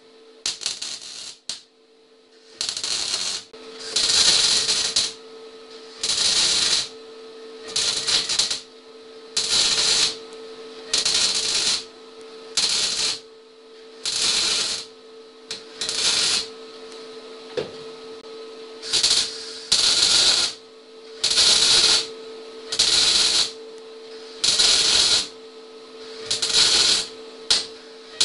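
Electric arc welding done in short stitch welds: the arc crackles and sizzles in bursts of under a second, about every one to two seconds, over a steady faint hum.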